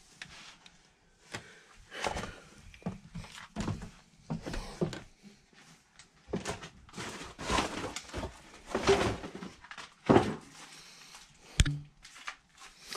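Footsteps thudding and scuffing down wooden stairs and across a cluttered floor, irregular thuds with a couple of sharp knocks near the end.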